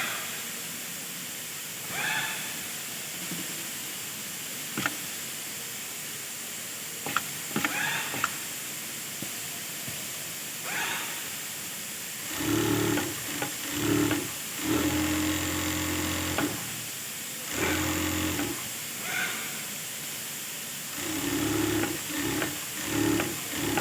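Industrial overdeck (coverstitch) sewing machine stitching a trouser waistband, running in short bursts of a second or two that start and stop about five times in the second half, over a steady hiss. Before that there are only a few faint scattered handling noises.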